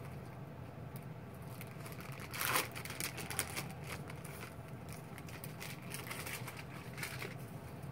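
Paper wrapper of a sterile glove pack rustling and crinkling as it is opened and unfolded by hand, with a louder rustle about two and a half seconds in.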